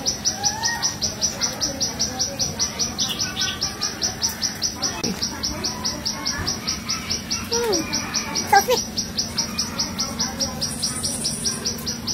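An insect calling in steady, evenly spaced high chirps, about five a second. Birds call behind it, with one louder call about eight and a half seconds in.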